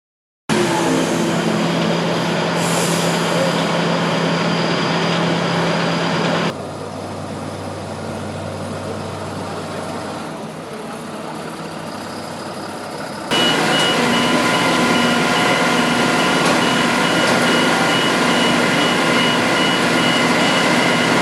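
Large truck engine running steadily and loudly, quieter for several seconds in the middle; in the last part a rapid high electronic beeping sounds over it.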